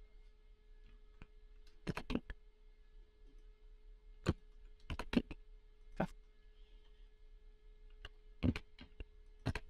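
Computer mouse clicks and keyboard key presses while working at a computer: about a dozen short, sharp clicks at irregular intervals, some in quick clusters of two or three. A faint steady tone hums underneath.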